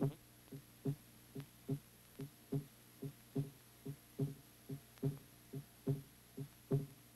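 Synthetic soundtrack drawn directly onto the film's optical sound track, playing a low pitched throbbing beat. The pulses come in pairs, a softer one then a louder one, a little more than one pair a second, like a heartbeat.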